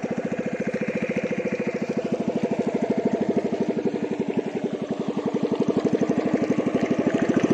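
Small motor of a narrow wooden river boat passing close by, a steady rapid chugging that grows louder as the boat comes nearer.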